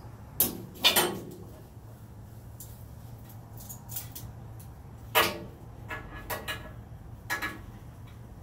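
Metal and wooden parts of a small sawmill being handled: a few sharp clunks and knocks, the loudest pair about half a second and a second in, then more near the middle and later on, over a steady low hum.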